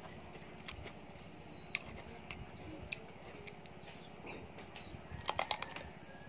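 Close mouth sounds of eating: scattered small clicks of chewing, then a quick run of sharp crunches about five seconds in as teeth bite into a raw green eggplant.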